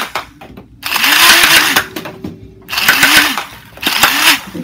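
Custom electric Nerf Rival blaster, built from Zeus flywheels and a Rapidstrike pusher, firing short full-auto bursts: the end of one burst, then three more, each a motor whine that rises and falls as the flywheels spin up, the pusher feeds balls through, and the braking stops the wheels between bursts.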